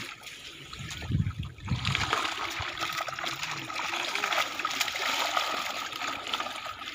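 Pond water splashing and sloshing as men wade through the shallows hauling a seine net. A brief low rumble comes about a second in.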